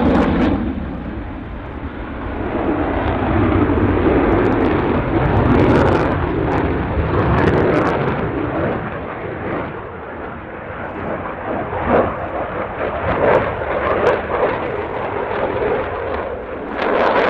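Jet noise from a Dassault Rafale fighter's twin Snecma M88 turbofans during display flight, swelling and fading as the jet manoeuvres, with sharp uneven crackles in the second half.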